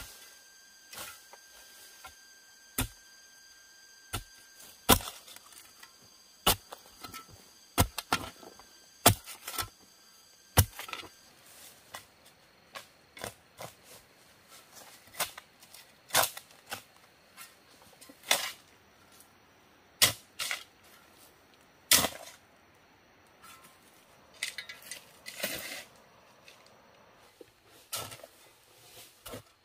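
A shovel and a hoe biting into and scraping damp clay soil while a trench is dug: sharp, irregular strikes about every one to two seconds, with soil being scraped and tossed in between.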